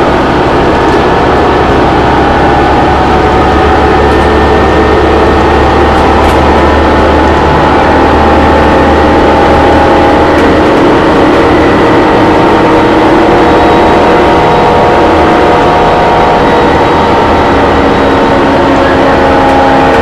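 Cummins ISL9 diesel engine and Allison B400R6 transmission of a 2011 New Flyer Xcelsior XD40 transit bus running as the bus drives, heard inside the passenger cabin: a loud steady drone with several slowly drifting tones over road noise. A deep low hum drops away about halfway through.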